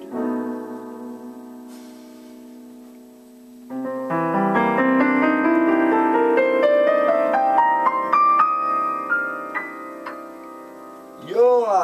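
Electronic keyboard played with a piano sound: a chord that fades, then about four seconds in a run of notes climbing steadily up the keyboard, ending on held notes. A brief loud swooping sound, rising and falling in pitch, comes near the end.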